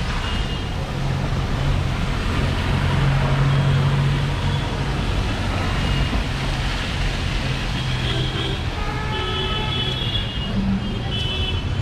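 Busy city-street traffic: engines running close by, with a low hum that swells about three seconds in. Vehicle horns toot several times in the second half.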